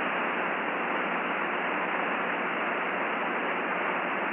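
Steady radio static: an even, thin hiss on the Mercury air-to-ground voice channel with the link open and no voice on it.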